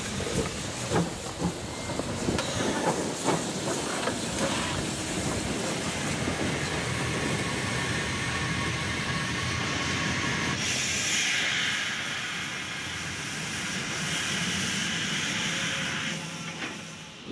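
Steam locomotive sound for a small model tank engine shunting: clatter and knocks of the engine and wagons in the first few seconds, then a steady steam hiss from about ten seconds in that stops shortly before the end.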